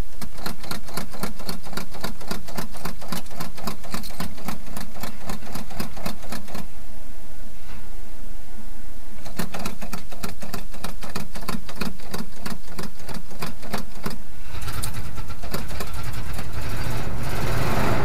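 The 1982 GMC C30 pickup's engine being cranked over by its starter on a freezing cold start, with an even, rhythmic churn. It cranks in two long tries with a pause of a few seconds between them, and about fourteen seconds in it catches and runs.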